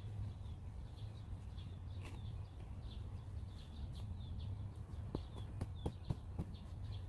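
Small birds chirping over and over, short high calls, with a steady low hum underneath. About five seconds in come several sharp knocks and clicks, the loudest sounds here, as hive boxes and tools are handled.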